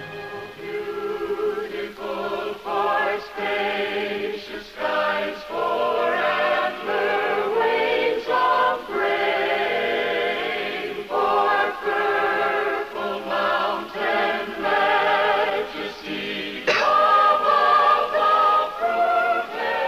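A mixed choir of men's and women's voices singing together in long, held notes with vibrato.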